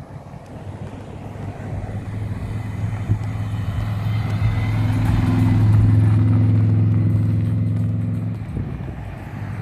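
A Subaru car driving past at steady revs. Its engine note builds over about six seconds, peaks, then fades as it goes by.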